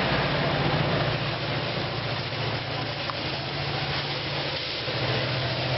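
Caltrain commuter train going past, with a steady rumble of wheels on the rails and the low, pulsing hum of its diesel locomotive engine.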